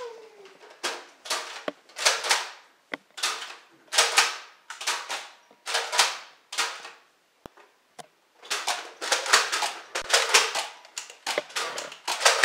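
Nerf blasters firing, a long run of sharp pops each about one or two seconds apart, with a quicker volley of shots around nine to ten seconds in.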